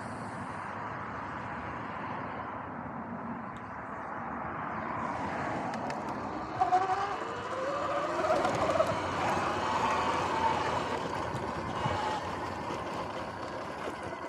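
Steady outdoor noise at first, then about six seconds in the Sur-Ron X electric dirt bike's motor starts to whine, rising in pitch as the bike pulls away and holding up as it rides across grass, with wind and rolling noise beneath.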